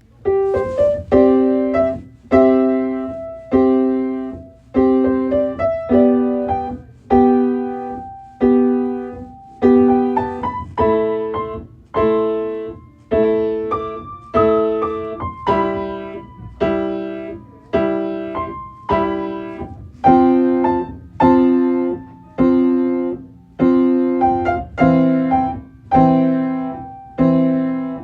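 Piano music: gentle chords struck about once a second, each left to ring and fade before the next.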